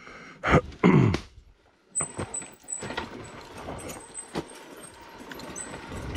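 A man lets out two deep groans with a falling pitch in the first second and a half. From about two seconds in, a KTM EXC 500 single-cylinder four-stroke dirt bike is running steadily, with scattered clicks and a thin high whine.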